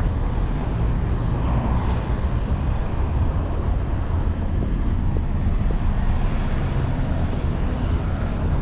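Street traffic noise: cars running and passing at a city crosswalk, a steady low rumble with no let-up.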